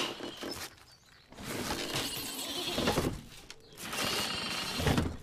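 Cartoon sheep bleating and grunting with strain, mixed with rough rubbing and scraping noises, in three stretches with short pauses between.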